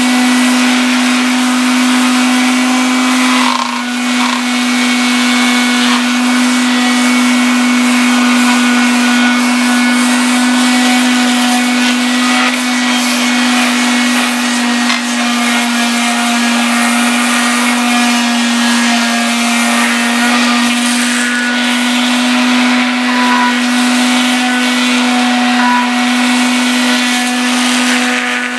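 Small handheld electric sanding tool running steadily with a high motor whine and a gritty hiss as it sands the outboard's lower-unit gearcase. The whine dips briefly about four seconds in.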